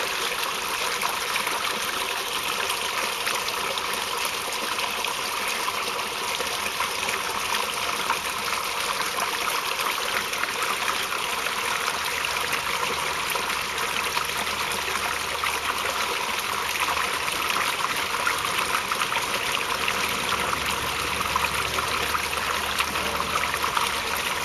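Small stream flowing over rocks: a steady, even rush of water.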